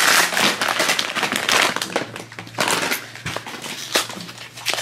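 Foil blind bag crinkling and crackling as hands open it, loudest in the first two seconds and tapering off.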